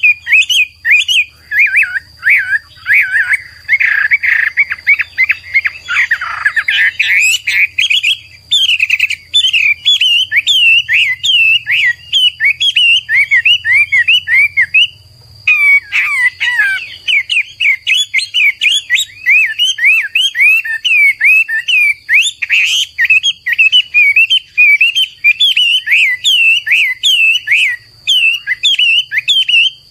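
Chinese hwamei (Garrulax canorus) singing a long, fast, varied song of quick notes that slide up and down, with a brief pause about halfway through.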